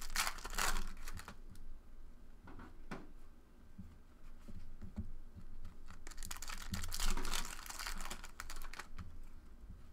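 Trading-card packs being handled: foil wrappers crinkling and tearing open, with many quick light clicks of cards being flipped and slid through by hand. The crinkling is loudest right at the start and again from about six and a half seconds in.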